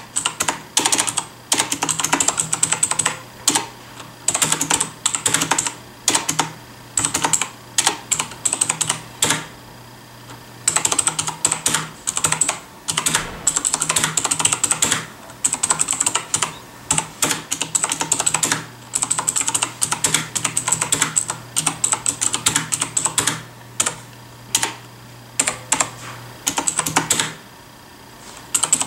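Typing in runs on a Logitech G710 mechanical keyboard with Cherry MX Blue switches whose keycaps are fitted with blue rubber O-rings. The switches still click, but the O-rings damp the clack of the keys bottoming out. There are a few short pauses between runs of keystrokes.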